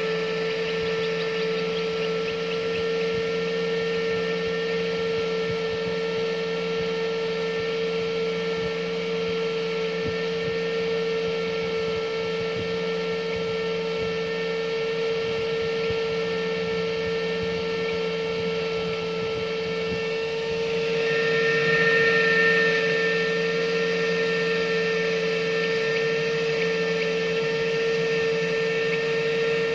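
A steady electrical hum with a few fainter higher tones above it, swelling briefly louder about two-thirds of the way through.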